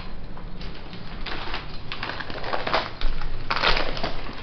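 Gift wrapping paper crinkling and rustling in irregular bursts as a present is handled and unwrapped. The loudest crackle comes about three and a half seconds in.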